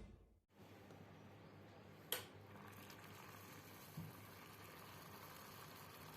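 Near silence: faint room tone, broken by one sharp click about two seconds in and a softer knock about four seconds in.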